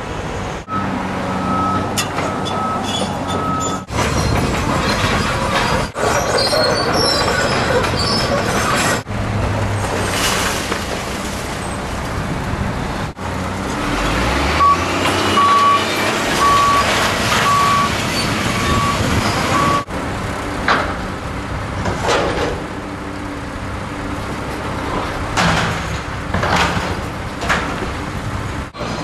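Hydraulic excavators, among them a Caterpillar 235, demolishing a building: diesel engines running steadily, with crashing and scraping of metal and debris, heaviest in the second half. A backup alarm beeps at an even pace twice, briefly near the start and for about five seconds midway.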